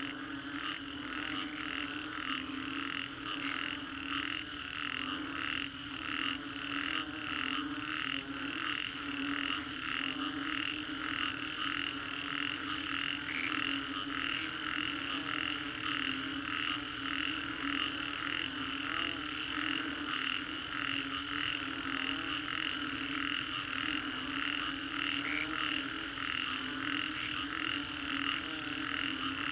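Chorus of many frogs calling after a rainstorm: a steady low droning layer under a higher pulsing layer that repeats about twice a second.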